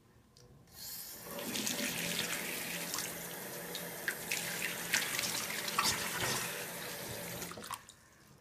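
Bathroom sink faucet running into the basin, turned on about a second in and off near the end, with splashes as cupped hands scoop water to wash the face.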